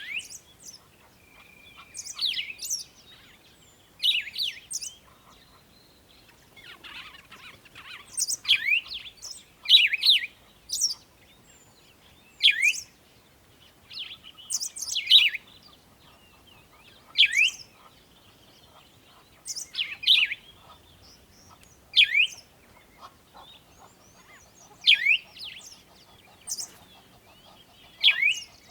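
Birds chirping: short calls with quick downward-sliding notes, repeated about every two seconds.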